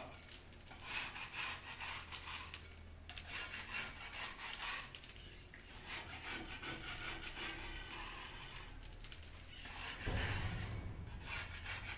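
Steel putty knife scraping burrs off dried cement mortar, in repeated rasping strokes with short pauses between them.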